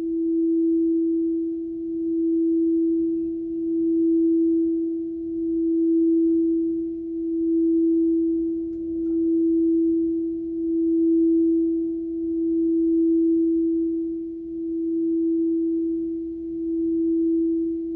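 A single sustained pure tone for sound healing, held at one pitch with only a faint overtone, its loudness swelling and fading in a slow, even pulse about every two seconds.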